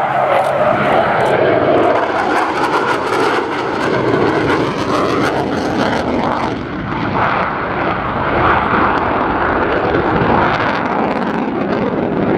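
Jet noise from an RAF Panavia Tornado GR4 in flight: a loud, steady roar of its twin RB199 afterburning turbofans. The high hiss drops away about halfway through as the sound dulls.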